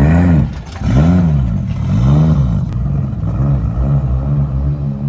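Engine revved in repeated throttle blips, about one a second, each rising and falling in pitch; the blips get smaller and it settles to a steady idle near the end.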